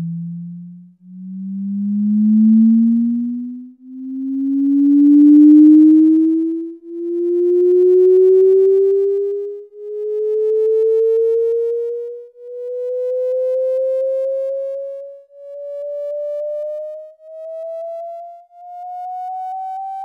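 MIT's recording of sound waves in a perfect fluid, a gas of fermions made in the lab, made audible as a series of electronic-sounding tones. About nine tones swell and fade one after another, climbing smoothly in pitch and growing quieter toward the end.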